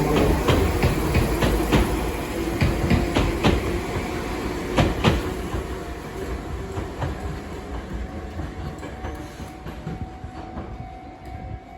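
Enoden (Enoshima Electric Railway) train running over the rails, its wheels clicking over rail joints. It is loud at first and fades steadily as it moves away.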